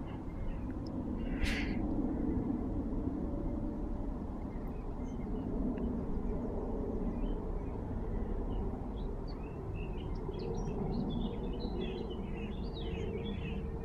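Swallows twittering in quick clusters of short high chirps over the last few seconds, above a steady low background rumble. One brief sharp sound stands out about a second and a half in.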